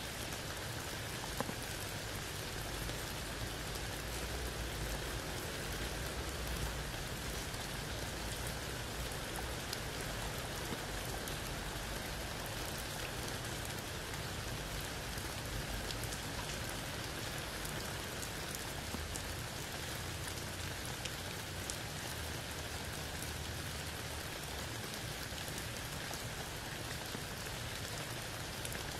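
Steady rain falling through the leaves of a tree onto wet ground and a puddle, with a scatter of separate drop ticks over an even hiss.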